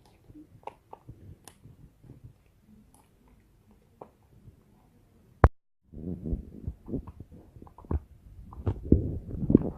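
Slime being played with: scattered small clicks and pops, one sharp click about five and a half seconds in, then denser squishing and crackling from about six seconds on.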